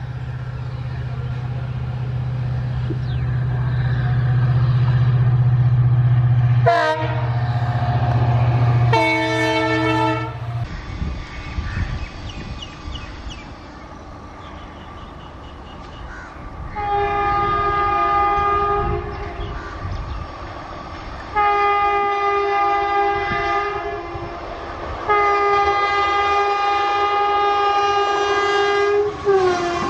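WDP-4 diesel locomotive passing close with its two-stroke engine running loud, sounding its horn just before the engine sound ends. Then an electric locomotive approaches over rail noise, sounding three long multi-tone horn blasts, the last about four seconds long.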